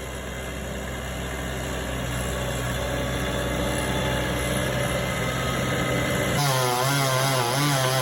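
Engine running steadily with a low hum, slowly growing louder. About six seconds in it gives way abruptly to a higher engine note whose pitch wavers up and down, like a small engine at part throttle.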